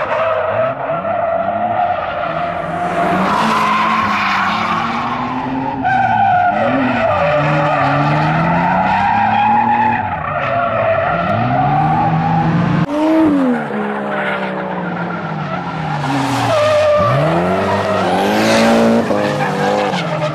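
Drift cars sliding through a course: engines revving hard and easing off in repeated rises and falls, with tyres screeching through the slides.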